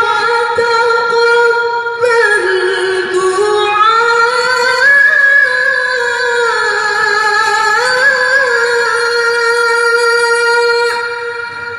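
A woman reciting the Quran in a melodic chant, drawing out one long ornamented note that climbs in pitch around the middle and falls back again, then fades away near the end.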